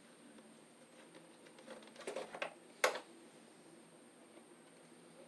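Faint rustling of stiff electrical wire being bent and handled at an open breaker panel, with one short sharp click a little under three seconds in.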